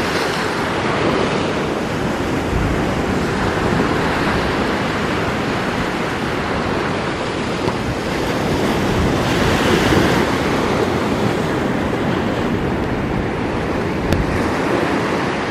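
Small surf breaking and washing up a sandy beach, a steady rushing wash that swells a little about two-thirds of the way in, with wind rumbling on the microphone.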